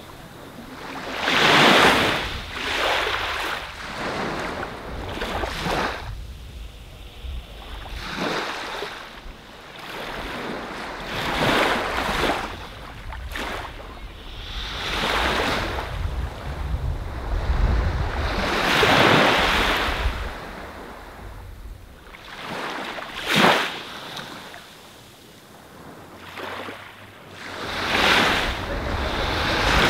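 Ocean surf washing onto a beach, the noise swelling and falling away every few seconds, with one sharper splash about three-quarters of the way through.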